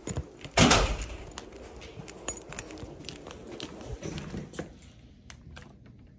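A loud thud about half a second in, then light metallic jangling and scattered clicks while someone walks down a carpeted hotel corridor in heels.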